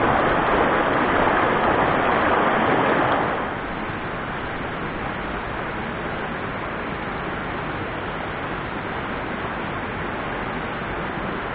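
Steady rushing of water over the rocks of a mountain stream, louder for about the first three seconds, then settling to a lower even level.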